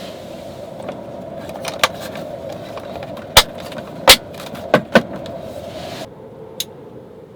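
A handful of sharp clicks and knocks from things being handled in a parked car, over a steady rushing background that drops away about six seconds in. The loudest knocks come a little past three and four seconds in, with a quick pair near five seconds.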